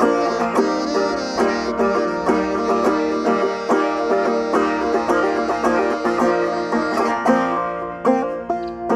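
Banjo picked in a quick, steady run of plucked notes, an instrumental passage with no singing; the chord changes about seven seconds in.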